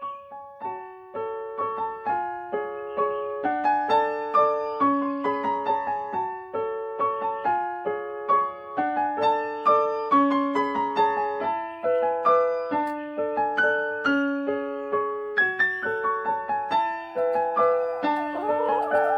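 Background piano music: a steady, flowing run of notes with a gentle, even rhythm.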